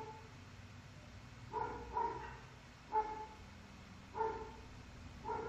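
A dog barking faintly: about five short, separate barks spread over a few seconds.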